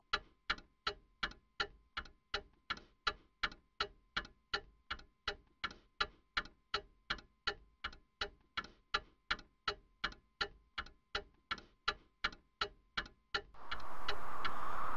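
A clock ticking steadily, a little over two sharp ticks a second. The ticking stops near the end and a steady rushing noise comes in.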